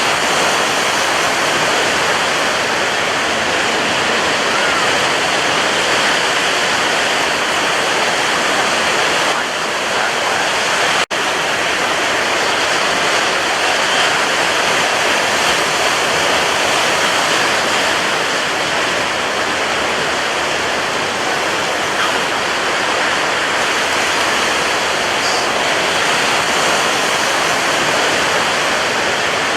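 Sea surf: a steady, dense rush of breaking waves with no audible lulls, broken once by a split-second dropout about eleven seconds in.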